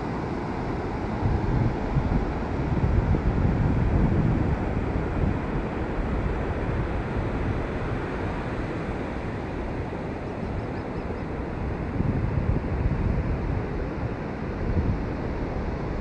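Ocean surf rushing steadily on the beach, with wind buffeting the microphone in gusts that swell several times.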